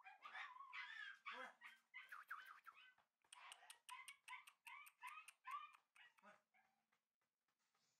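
Shiba inu puppies giving a rapid run of short, high whines and yips as they play, fading out after about six seconds.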